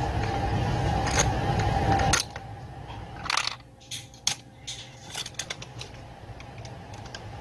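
A steady hum with a held tone for about the first two seconds, cutting off suddenly. Then scattered clicks and clinks of hand tools and small metal parts as carburettor bolts are undone on a Husqvarna 440 chainsaw.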